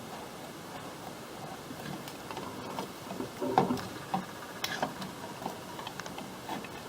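Scattered light clicks and knocks of small objects being handled, loudest about three and a half seconds in, over a steady hiss.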